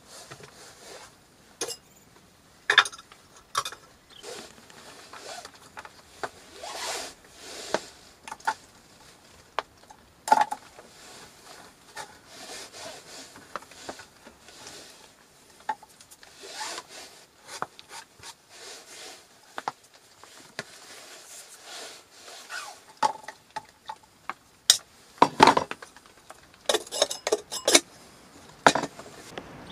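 Small metal camping kettle and its lid being handled on a wooden table: scattered clinks, taps and rubbing, with a run of louder clinks near the end as the lid is set on the kettle.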